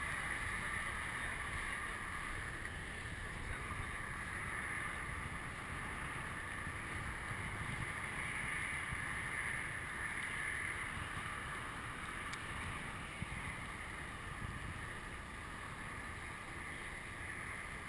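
Wind rushing over the microphone of a camera mounted on a moving bicycle, a steady hiss over a low rumble.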